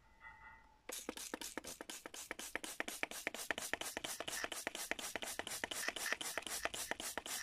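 Hand trigger spray bottle squirting soapy water in quick repeated pumps, about five short hissing squirts a second, starting about a second in.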